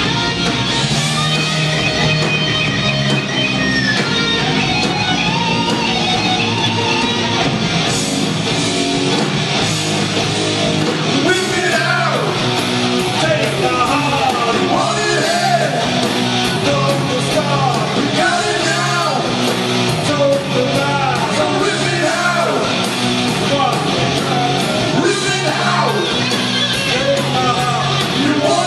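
Live hard rock band playing loud and steady: distorted electric guitars, bass and drums, with shouted singing. Wavering, bending high lead notes come in over the second half.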